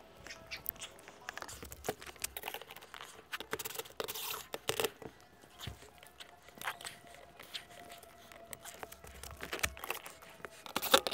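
Hands working a solar microinverter trunk cable and its plastic connectors: scattered clicks, scrapes and rustles of cable and plastic parts against the asphalt shingles, with a louder cluster of clicks near the end.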